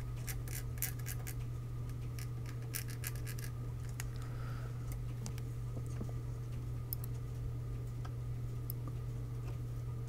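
Flux pen tip dabbing and scratching over the solder pads of a circuit board, a quick run of small clicks and scrapes in the first few seconds, then only occasional light ticks as tweezers and a soldering iron tip touch the board. A steady low hum runs underneath.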